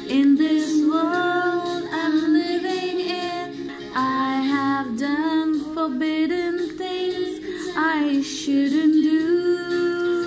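A woman singing a slow hymn-like song with held notes, along with instrumental musical accompaniment that holds steady chords underneath.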